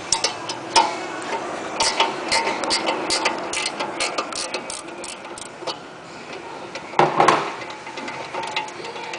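Metal clicks and clinks from a steering knuckle spreader being handled and worked in a steering knuckle's pinch slot: a couple of sharp knocks near the start, a run of quick, irregular clicks through the middle, and a louder clatter near the end.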